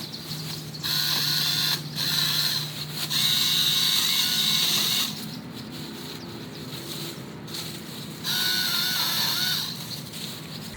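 Sousky mini electric chainsaw running in four bursts as its chain cuts through a branch: a high motor whine with the rasp of the chain, with short pauses between.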